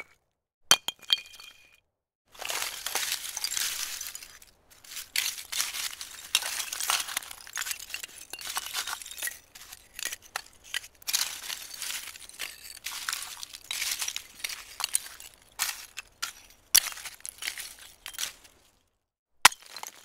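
Ice: a sharp clink with a brief ringing tone about a second in, then a long stretch of dense, irregular crunching and crackling of ice, and a single sharp click near the end.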